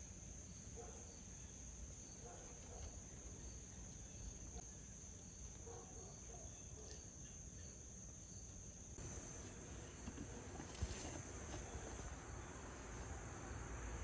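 Faint steady high-pitched insect chorus, such as crickets, getting louder about nine seconds in, with one soft knock near eleven seconds.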